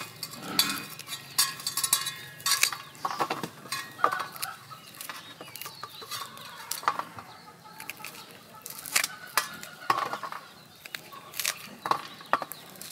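Kitchen knife slicing kernels off an ear of corn, with the loose kernels dropping and clicking onto a stainless steel tray: irregular scrapes and sharp little clicks.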